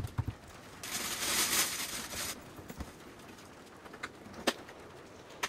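Gear being unpacked by hand from a bag: a couple of soft knocks, then about a second and a half of rustling, then a few sharp clicks near the end as a box and coiled cable are handled.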